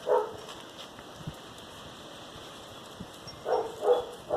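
A dog giving a few short barks: one right at the start and a couple more about three and a half seconds in.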